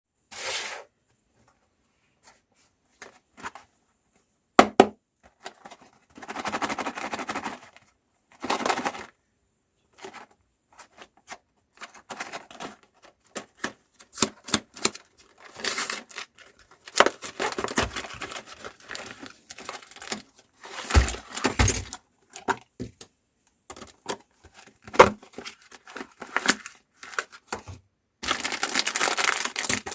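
Crinkling and tearing of plastic packaging, with scattered sharp clicks and knocks from handling. Near the end it becomes a steadier, continuous crinkling.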